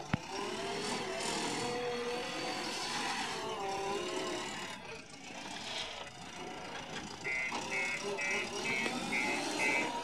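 JCB 3DX backhoe loader's diesel engine running hard, its pitch rising and falling as the loader arms lift a full bucket of soil. From about seven seconds in, a reversing alarm beeps about three times a second.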